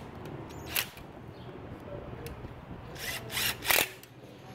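Cordless DeWalt power driver on a socket extension running in the bolts of the sterndrive's water pump housing: a steady motor whir, with short louder bursts about a second in and twice near the end.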